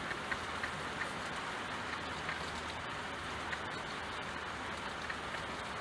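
Steady rain falling, an even hiss with the odd single drop ticking out above it.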